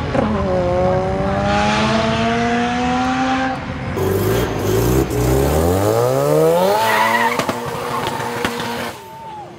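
Sports car engines under hard acceleration. First one engine pulls with its pitch climbing steadily. Then, after a break about 4 seconds in, a red sports car revs up sharply with its pitch rising fast while its rear tires spin and squeal in a burnout, before the sound settles and drops away near the end.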